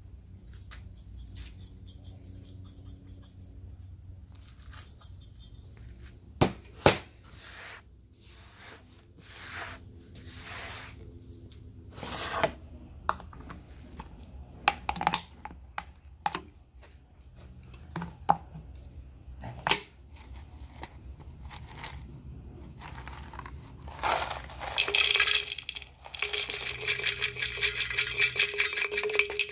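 Handling of a brass lamp fuel tank and a cut-down plastic bottle funnel: scattered clicks, knocks and crinkling of plastic. About 24 s in, a steady rushing noise begins, the sound of something being poured into the tank through the funnel.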